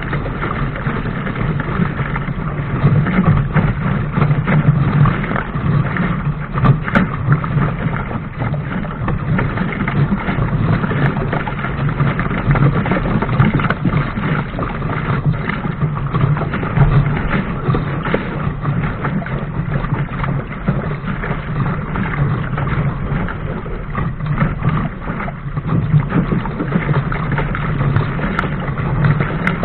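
Steady rush and splash of water along the hull of an ILCA (Laser) sailing dinghy moving fast, with wind noise on the microphone.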